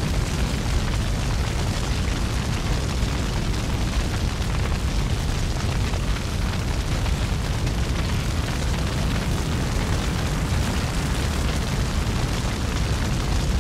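A steady, deep rumble with an even hiss over it, unchanging and without distinct bangs or pitch.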